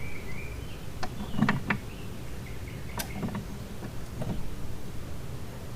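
Hand tools clicking and knocking on metal while the propeller nut on an outboard's lower unit is being tightened: about half a dozen short, sharp clicks at irregular spacing.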